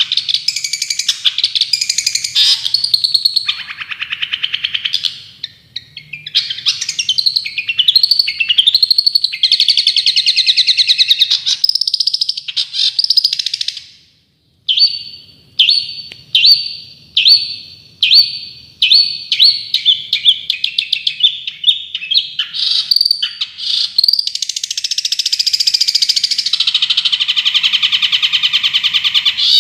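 Songbird song from a bird-song tutoring recording for long-tailed shrikes, with loud, fast chattering phrases. About halfway through it breaks briefly, then gives a series of short, sharp repeated notes that come faster and faster. It ends in a long, continuous rapid trill of the rattling, rapid-fire kind that keepers call 'tembakan'.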